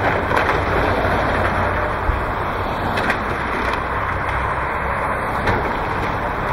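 Excavator demolishing a wood-frame house: the diesel engine runs steadily under the cracking and crunching of timber being torn apart by the grapple, with sharp cracks near the start, about three seconds in and about five and a half seconds in.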